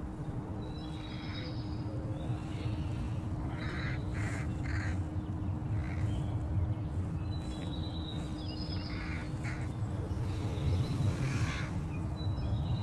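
Short, harsh bird calls, several in small groups, over a steady low rumble and a faint constant hum.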